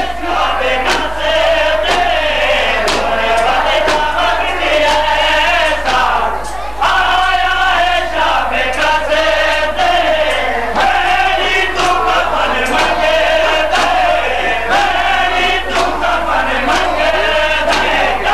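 A crowd of men chanting a noha, a Shia mourning lament, together, over repeated sharp slaps of hands beating on chests (matam).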